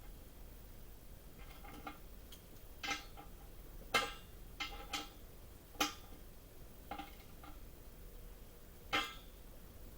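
Irregular sharp metallic clicks and knocks, about a dozen spread unevenly, as of tools or metal parts being handled.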